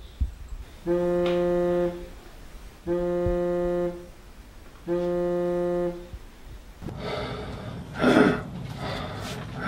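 A low, steady horn-like tone sounds three times, each about a second long and two seconds apart, with an even pitch. From about seven seconds in it gives way to a rough, rushing noise with a loud burst near eight seconds in.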